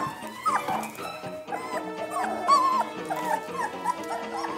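Three-week-old doodle puppies whimpering and yipping in many short, high squeaks, over background music.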